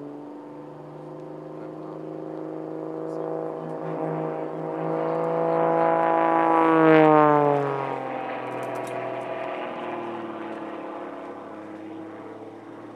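Single-engine aerobatic propeller plane's engine and propeller droning overhead. It grows louder to a peak about seven seconds in, where the pitch drops as the plane passes, then fades away.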